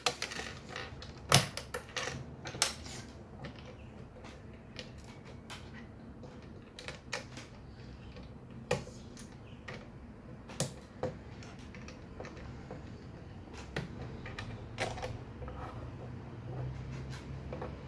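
Plastic Lego bricks being pulled apart and pressed together, with bricks set down on a wooden table: irregular sharp clicks and small knocks.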